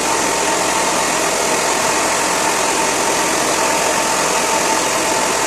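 Handheld hair dryer running steadily on wet hair: an even rush of blown air with a steady whine in it.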